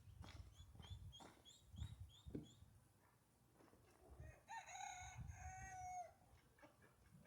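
A rooster crowing once, faint and a little distant, about four and a half seconds in, the crow lasting about a second and a half. Earlier a small bird gives a quick run of high chirps.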